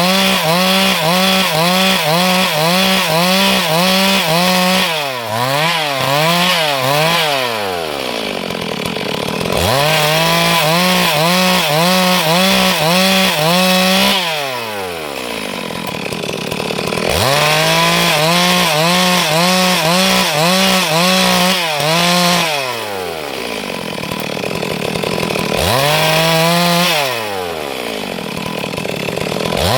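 Stihl MS 382 two-stroke chainsaw cutting wood at full throttle in repeated cuts. Between cuts the throttle is let off and the engine pitch falls toward idle, then rises again as it is revved back into the wood, about four times.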